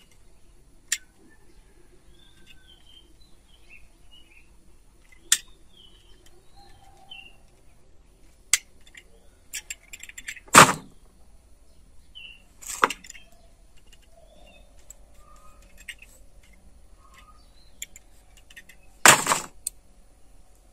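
Utility knife cutting a small fig scion into a V-shaped wedge for cleft grafting: several sharp clicks and short scrapes, the loudest about halfway through and another near the end. Small birds chirp faintly throughout.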